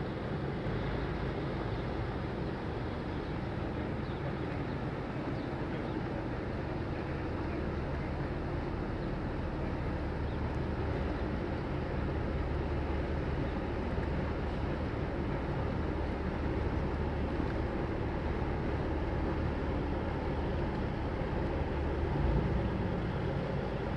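Steady low drone of a boat engine with wash and wind noise, swelling briefly about 22 seconds in.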